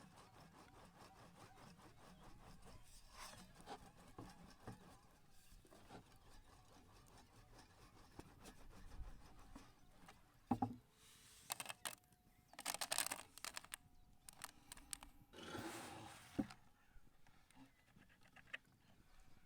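Hand-made pasta being worked on wooden tools: faint handling at first, then a sharp wooden knock about halfway through, followed by a few short bursts of scraping, with brief ringing tones between them.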